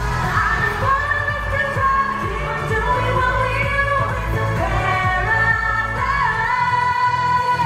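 Live K-pop concert music: a woman singing a melody over a band or backing track with a steady bass. The bass drops out near the end as the song winds down.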